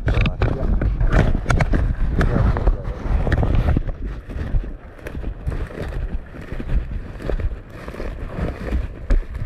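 Footsteps of people walking: irregular knocks over a heavy low rumble of wind buffeting the microphone.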